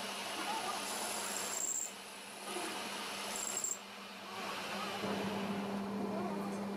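Metal lathe running with a steady hum while its tool scrapes the spinning steel load-cell tip. The scraping pauses briefly twice, each time just after a short high squeal.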